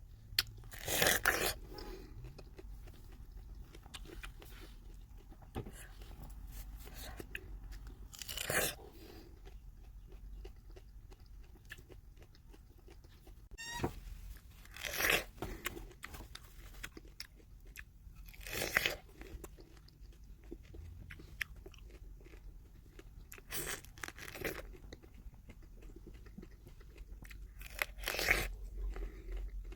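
A person biting into and chewing fresh apricots close to the microphone: about six loud bites a few seconds apart, with quieter chewing in between.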